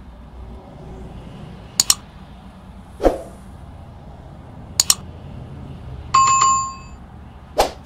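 Short sharp knocks and quick paired clicks at intervals over a faint steady hiss, with a bell-like chime ringing for under a second about six seconds in.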